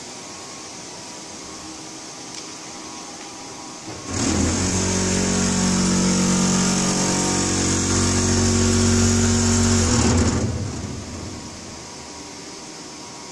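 Powder-handling machinery running: an electric motor starts about four seconds in, runs with a steady hum and hiss for about six seconds, then winds down over about a second. A steady low background hum runs underneath.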